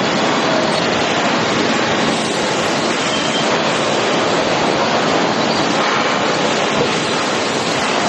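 Steady, loud din of hardwood sawmill machinery: the chain conveyors of a waterfall grading line running, with no single knock or clatter standing out.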